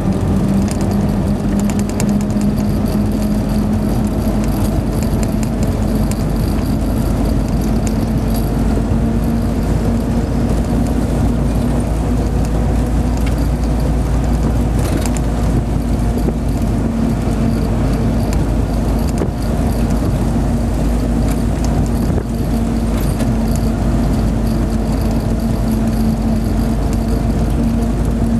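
Hotchkiss M201 jeep's four-cylinder flathead engine running steadily under way, heard from the open cab over constant road and wind noise, with light rattles from the jeep's body and fittings.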